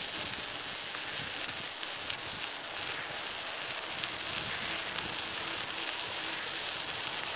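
Steady hiss of a bicycle rolling along cold pavement: tyre noise mixed with the rush of air past the bike, with a few faint ticks.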